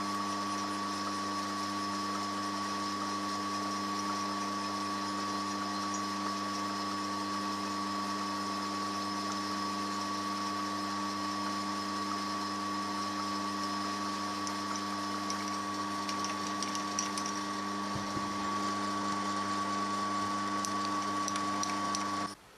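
Milling machine spindle running steadily as a 17.5 mm drill is fed into an aluminium motorcycle cylinder head: a constant motor hum and whine with a hiss of cutting. It stops abruptly near the end.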